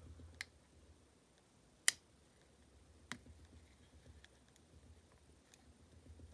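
Three sharp metallic clicks, the middle one loudest, with a few faint ticks between: the blades and tools of a Victorinox 108 mm German army knife snapping on their backsprings as they are opened and closed.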